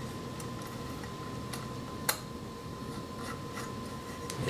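Small metal parts, a washer and a stock lug, being handled and fitted by hand onto a Sheridan Streak air rifle's tube: faint scattered clicks and rubbing, with one sharper click about two seconds in.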